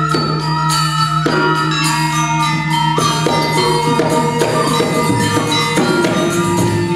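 Balinese gamelan playing: bronze metallophones struck in a dense rhythm, their notes ringing over a steady held low tone.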